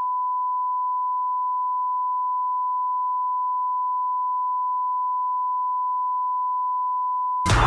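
Television test-card line-up tone: a single steady high-pitched beep held at a constant level. It cuts off just before the end as loud music with heavy bass starts abruptly.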